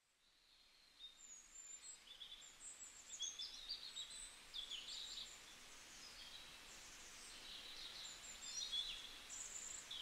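Faint birdsong: many short, high chirps and trills starting about a second in, over a soft outdoor hiss.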